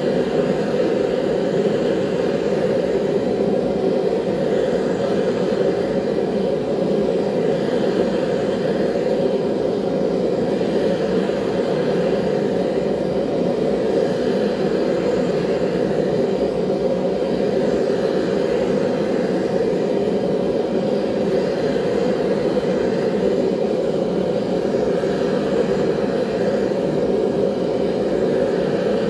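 Forge running steadily with an even, rushing noise while steel knife blades are heated in it for annealing.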